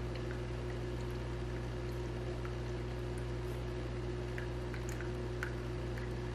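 Water trickling and dripping in a small tabletop rock fountain, with faint scattered drips over a steady low hum.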